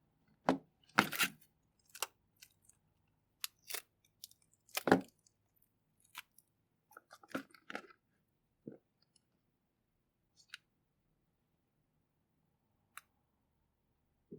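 Slime being handled by hand, giving scattered irregular crackles and pops with quiet gaps between them; the loudest come about a second in and again about five seconds in.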